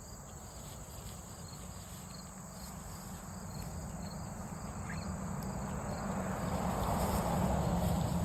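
Evening crickets chirring steadily in a high, continuous trill. A louder noise builds over the last few seconds underneath it.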